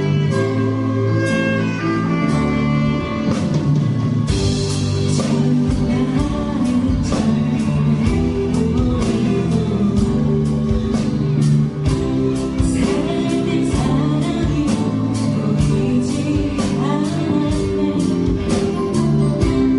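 Live band music: held chords with guitar, then drums come in about four seconds in and keep a steady beat.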